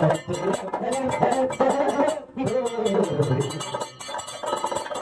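Kathakali accompaniment: a voice singing over a steady beat of struck bell-metal percussion. The singing fades about three and a half seconds in, leaving the metal beat.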